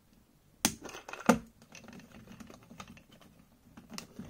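Hard plastic clicks and handling rattles from a Hasbro Lightning Collection Omega Ranger figure and its Uniforce Cycle as the figure's hands are popped onto the handlebar pegs and the figure is settled on the seat. Two sharp clicks come about half a second apart near the start, then lighter taps and another click near the end.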